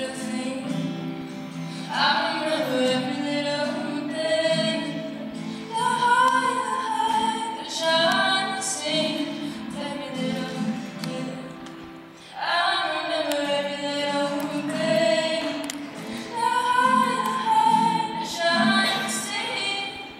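A young woman singing a song to her own acoustic guitar strumming, amplified through a stage microphone.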